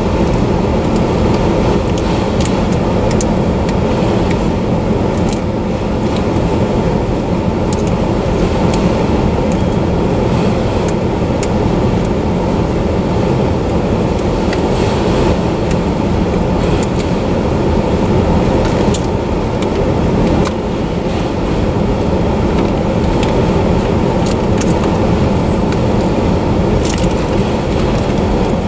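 Autorack freight cars rolling past at close range: a steady rumble of steel wheels on the rails, with scattered sharp clicks and rattles.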